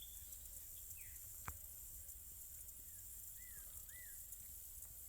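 Faint forest ambience: a steady high hiss with a few short, arched bird chirps scattered through it, and a single sharp click about a second and a half in.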